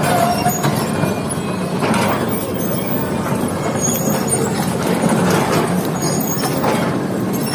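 Heavy machinery running steadily, an excavator's diesel engine droning, with a few knocks and clatters as rock is loaded into a dump truck.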